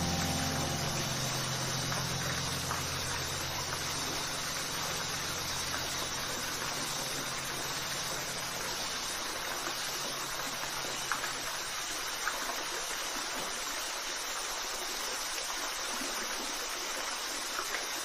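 Waterfall: a steady, even rush of falling water. Low held notes of background music fade out under it over the first dozen seconds.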